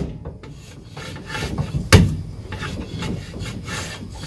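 Brake drum on a jacked-up ZAZ Zaporozhets turned by hand, scraping continuously as it rubs slightly against something inside, a sign of the drum dragging. A sharp knock comes at the start and a louder one about two seconds in.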